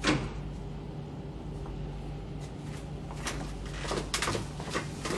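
A door swings shut with a sharp bang, followed from about three seconds in by a few footsteps on a hard floor, over a steady low hum.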